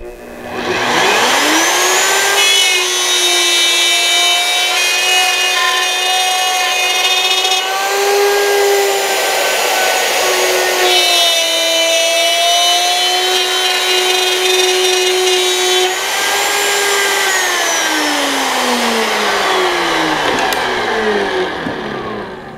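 Handheld electric router spinning up to speed, then running with its bit cutting a dado groove into wood. Its pitch sags slightly under load. Near the end it is switched off and winds down with a long falling whine.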